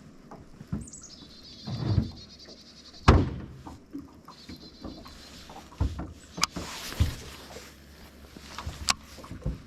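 Scattered knocks and thumps against a fishing boat, the loudest about three seconds in, with two short stretches of high buzzing and a couple of sharp clicks.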